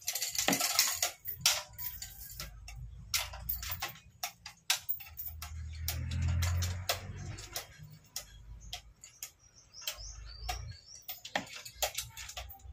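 Manual chain hoist being worked by its hand chain, with the engine hanging from it: a run of irregular metallic clicks from the ratchet pawl and the rattle of chain links.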